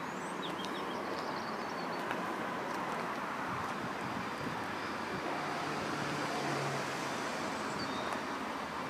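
Steady outdoor background noise from the car park, a constant hiss-like rumble, with a few brief bird chirps about a second in.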